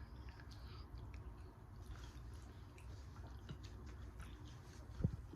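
Quiet chewing and faint mouth clicks of someone eating a seafood boil, over a low steady hum; a few louder sharp clicks start near the end.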